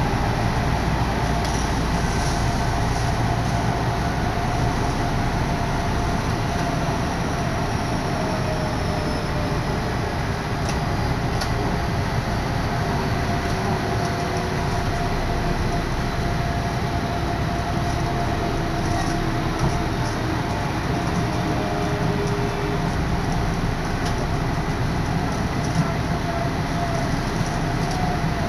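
Odakyu Odawara Line commuter train heard from inside the carriage while running: a steady rumble of wheels on track, with a faint whine that slowly shifts in pitch and a few sharp clicks.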